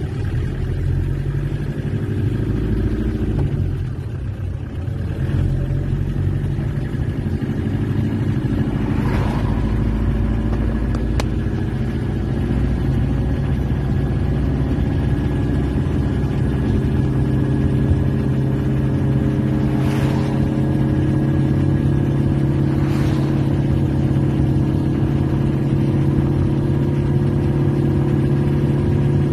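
Peugeot XD3 four-cylinder diesel engine in a Peugeot 404 pickup running on the move, heard from inside the cab. The engine note dips about three to four seconds in, then holds steady and slowly climbs, with a few short knocks along the way.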